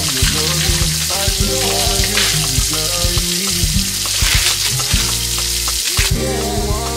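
Clear plastic flower wrapping crinkling and rustling as a bouquet is handled and pulled out of it, over background music with pitched notes and steady bass.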